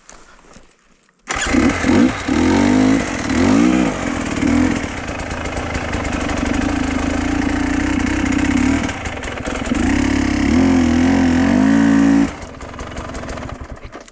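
A small engine running and revving, its pitch rising and falling. It starts suddenly about a second in and cuts off suddenly near the end.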